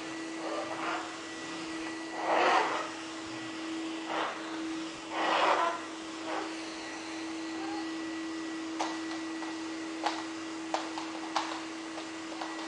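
Vacuum cleaner running with a steady hum. Three louder rushing swells come in the first half, and scattered light clicks and knocks follow in the second half.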